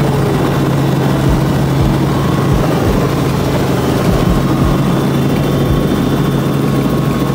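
Tour helicopter running: a steady engine and rotor drone with a constant low hum, broken by irregular low thumps.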